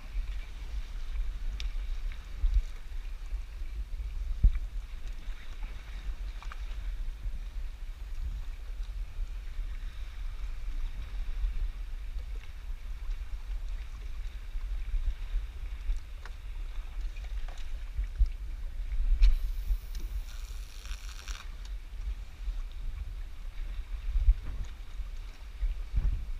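Wind rumbling on the microphone aboard a small fishing boat at sea, with a few scattered knocks and a brief hiss about three quarters of the way through.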